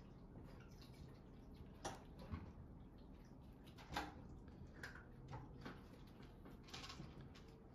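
Near silence: quiet room tone with about half a dozen faint, scattered clicks and taps.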